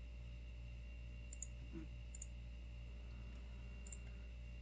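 A few faint computer mouse clicks, spaced irregularly, over a steady low electrical hum.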